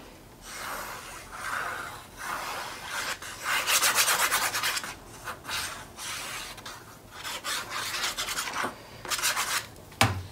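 Paper rubbing and rustling under hands as the nozzle of a liquid glue bottle is run along the edge of a patterned paper strip, in repeated scratchy strokes. A sharp knock comes near the end.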